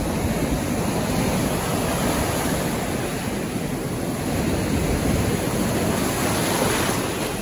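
Ocean surf: waves breaking and foamy water washing up over the sand, a steady rushing noise.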